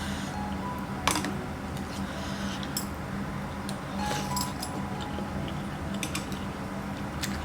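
Eating utensils clinking and tapping against a bowl: scattered sharp clicks and a few short metallic pings, the sharpest about a second in, over a low steady hum.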